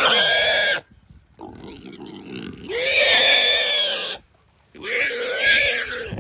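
Caught feral hog squealing while it is held down and tied. Loud, drawn-out squeals: one breaks off about a second in, then after a quieter stretch come two more of about a second and a half each, with a short pause between them.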